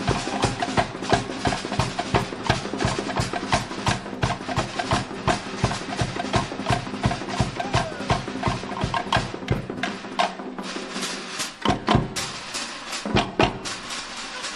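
Cook Islands drum ensemble playing a fast, even rhythm: sharp wooden slit-drum strikes over a low bass-drum beat. The bass beat drops out about ten seconds in, leaving the wooden strikes, then returns with a few heavy hits near the end.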